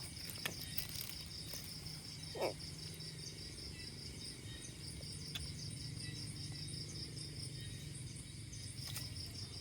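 Insects calling in a steady, high-pitched trill of rapid even pulses, with one short call about two and a half seconds in.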